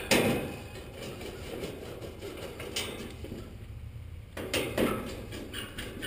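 Clicks and light knocks of a screwdriver being handled at the sheet-metal cabinet of a heat pump outdoor unit while its panel screws are taken out. A sharp knock comes right at the start, and a few more clicks follow about 3 and 5 seconds in.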